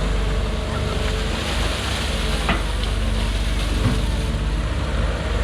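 Excavator engine running steadily under a constant hiss, with a faint click about two and a half seconds in.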